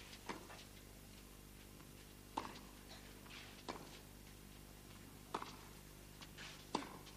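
Tennis ball struck by rackets in a baseline rally on clay: five faint, sharp hits, about one every one and a half seconds, over a steady low hum.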